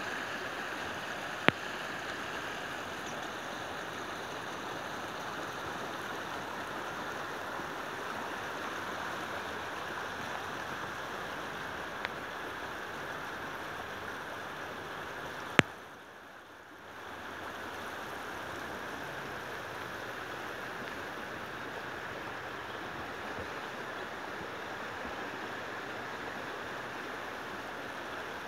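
Steady rush of the flooded River Severn's fast-flowing water. Two sharp clicks, one near the start and one about halfway through, and the sound drops away briefly just after the second.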